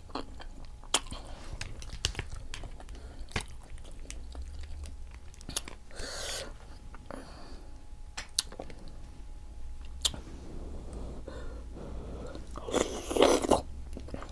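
Close-miked chewing of seafood boil food, with frequent short wet mouth clicks over a low steady hum; a louder, denser stretch of chewing comes near the end.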